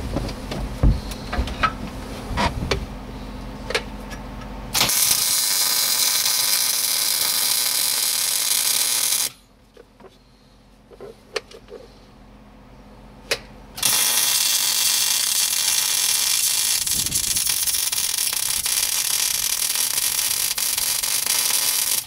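Arc welding on the broken steel seat bracket of a John Deere 7410 tractor: a loud, steady hiss of the welding arc in two runs. The first starts about five seconds in and lasts about four seconds; the second, about eight seconds long, starts about fourteen seconds in. A few light clicks and knocks come before the first run and in the pause between the two.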